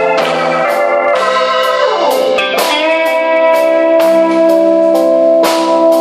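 Live instrumental rock: a lead electric guitar plays long, sustained melody notes over a band, sliding down in pitch about two seconds in and then holding one long note, with drum hits keeping time.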